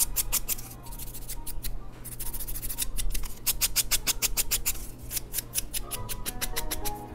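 Hand nail file rasping back and forth across a fingernail in quick strokes, several a second, pausing briefly about two seconds in and again about five seconds in.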